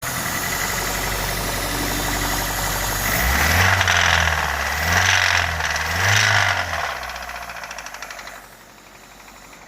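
Honda Fit's L13A 1.3-litre four-cylinder engine running with a knock, revved up three times from about three seconds in, then dropping back and settling quieter near the end. The knock comes from an engine with no oil in it, which the owner takes for a finished engine.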